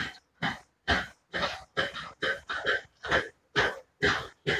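Footsteps of a person walking on a brick-paved path, an even pace of about two steps a second.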